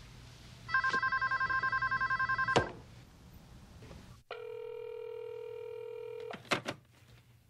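Cordless phone giving one warbling electronic ring lasting about two seconds, ending in a click. A couple of seconds later a steady buzzing tone sounds for about two seconds and cuts off, followed by a few sharp clicks as the handset is handled.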